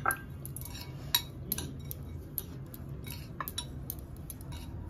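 A crumbly sev-and-spice filling mixed by hand in a glass bowl: irregular sharp clinks against the glass, about a dozen, over a low steady hum.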